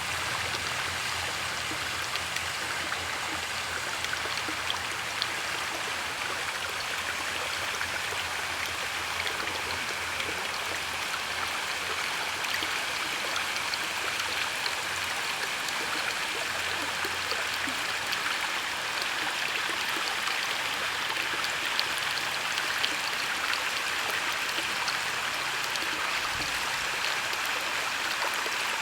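Canal water flowing steadily, an even rush with small splashes and droplet clicks.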